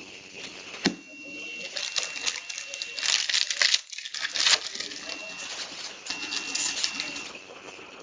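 Trading-card pack wrapper crinkling and cards being shuffled and handled, in quick scattered rustles and clicks with a busier stretch about three to four and a half seconds in.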